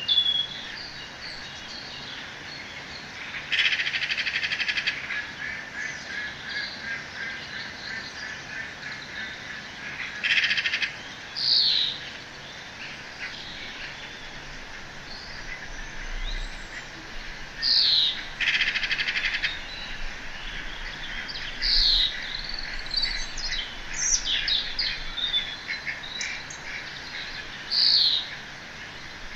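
Wild birds chirping and singing: a buzzy trill of about a second comes back four times, mixed with short downward-sliding calls and scattered chirps over a steady outdoor hiss.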